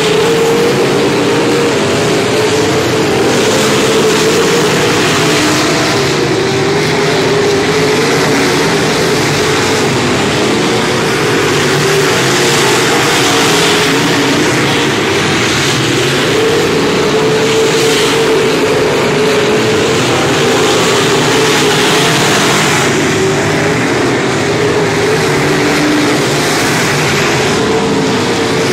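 A pack of dirt-track modified race cars running at speed together, their V8 engines making a loud, continuous drone that wavers in pitch as the cars go around the oval.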